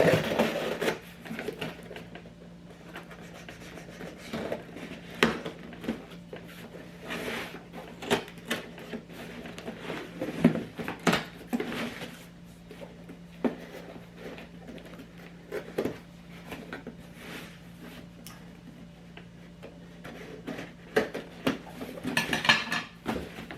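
Cardboard box and packaging being handled and opened by hand: scattered taps, scrapes and rustles at an uneven pace, over a faint steady hum.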